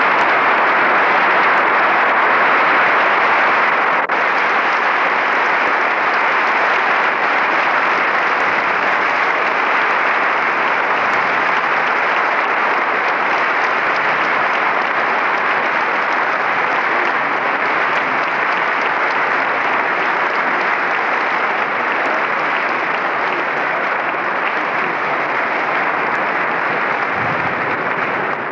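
Audience applauding, a dense, steady clapping that eases off slightly toward the end.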